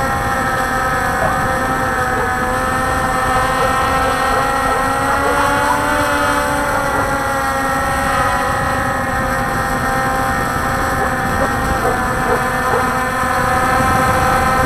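Walkera Scout X4 quadcopter's electric motors and propellers whining steadily in flight, heard from its own onboard camera, several pitches wavering slightly as the motors adjust. A rough low wind noise runs underneath.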